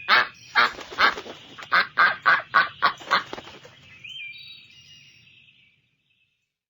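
Duck quacking, a rapid series of about ten quacks, followed about four seconds in by a fainter, higher-pitched drawn-out call that fades out.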